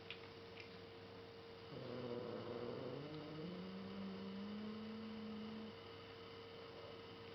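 A female cat growling at another cat: one low, drawn-out growl starting about two seconds in, rising slightly in pitch and held for about four seconds. A steady electrical hum sounds under it.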